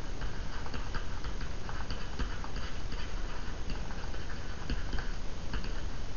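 A stylus tapping and clicking lightly and irregularly on a tablet screen while a word is handwritten, over steady background noise.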